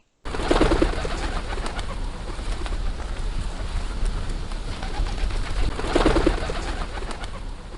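Pigeons cooing, one coo phrase about half a second in and another about six seconds in, over a steady background hiss and low rumble.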